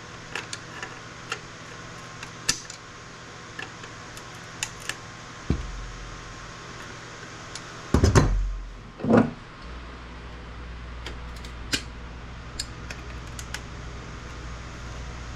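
Small sharp clicks and taps of a hand tool working components off a circuit board, with a thud about halfway through and a louder, rougher double burst of handling noise a little later. A low steady hum comes in for the last third.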